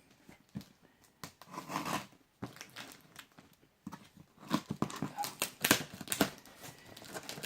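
Parcel packaging being handled and opened: plastic and bubble wrap crinkling, with irregular rustles, crackles and tearing, busiest past the middle.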